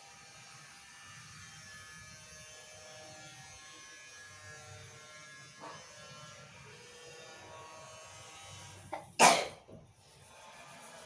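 A person sneezes once, loudly, a little after nine seconds in, with a short catch of breath just before it, over faint background music.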